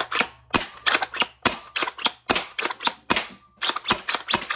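Homemade springer foam-dart pistol with a top-slide prime, primed and fired over and over: a quick, uneven run of sharp plastic clacks and spring snaps, several shots in a row.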